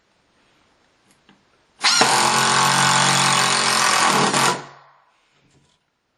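Ridgid Gen5x 18V brushless impact driver on its highest speed setting, driving a screw into wood. It starts about two seconds in, hammers steadily and loudly for nearly three seconds, then winds down.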